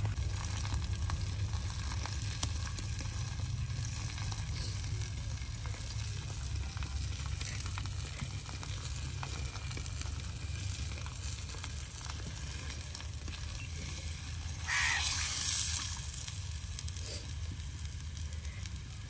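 Paratha frying in oil on a griddle: a steady sizzle, with a louder hiss lasting about a second about three-quarters of the way through.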